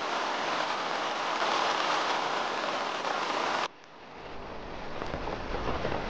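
Heavy rain falling as a steady hiss. About three and a half seconds in it cuts off abruptly to a much quieter rain sound, which slowly grows louder again.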